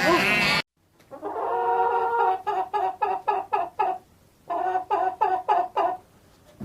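Chicken clucking: a drawn-out note that breaks into a run of quick, evenly repeated clucks, about four a second, then a second shorter run of clucks.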